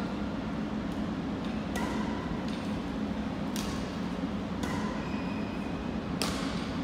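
Badminton rackets hitting a shuttlecock in a rally: four sharp hits spaced a second or two apart, the last the loudest, over a steady low hum.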